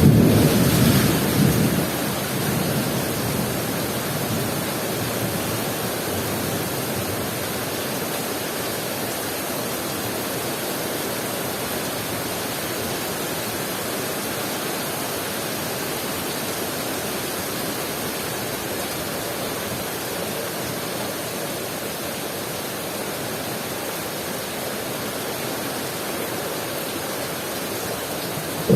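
Heavy rain pouring steadily. A low thunder rumble at the start dies away within about two seconds.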